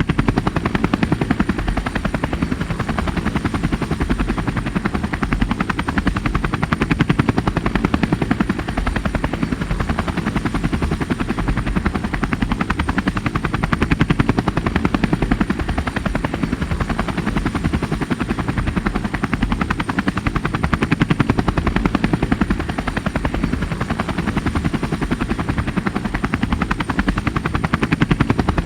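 Helicopter rotor chopping steadily in a fast, even beat, with a thin high whine running under it and the loudness swelling gently every several seconds.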